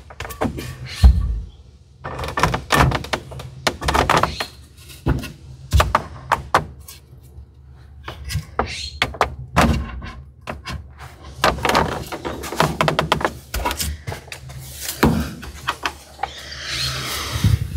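Irregular wooden knocks, thunks and clicks as boards are shifted and wedged against a new plastic dash cap in a truck cab, with a longer scrape near the end.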